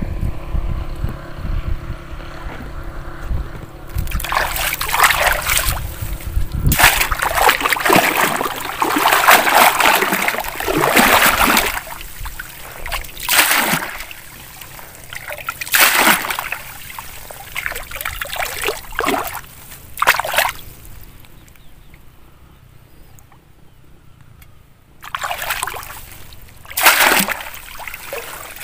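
Water splashing and sloshing in repeated bursts as a hand scoop net is swept through a shallow muddy pond and lifted, water streaming out through its mesh. A low rumble runs under the first few seconds, and there is a quieter spell before the last splashes.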